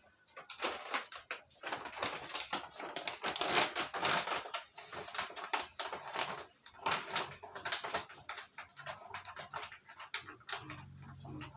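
Irregular rustling, clicks and knocks of clothes and objects being handled and moved about, with no steady machine running.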